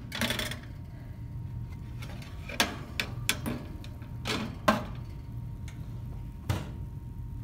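A metal muffin tin scrapes out of a countertop oven's rack, followed by a string of sharp clicks and light clanks as the tin is handled and the oven door is shut.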